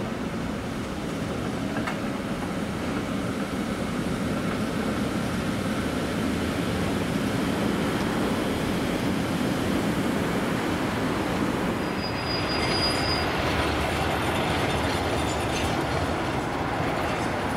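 Trams running on street track: an old high-floor PCC tram rolls past with a steady rail rumble, and about two-thirds of the way in a brief high-pitched wheel squeal is heard.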